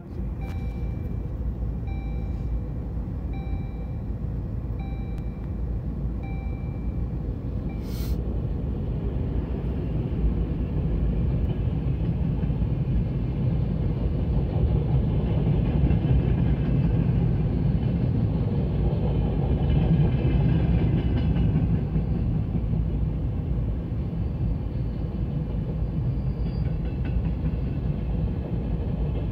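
Long freight train of open coal wagons rolling past at a level crossing: a steady rumble of wheels on rails, loudest around the middle. About five short, evenly spaced beeps sound in the first seven seconds, and a sharp click comes about eight seconds in.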